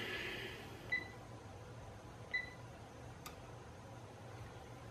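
Digital multimeter giving two short, high beeps about a second and a half apart, followed by a faint click.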